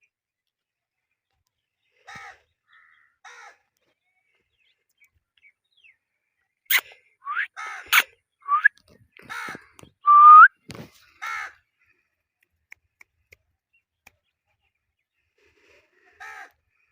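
Pet green parrot calling in short squawks, a few at first and then a quick run of calls in the middle. The run mixes squawks with three short rising whistles and two sharp clicks, and one more squawk comes near the end.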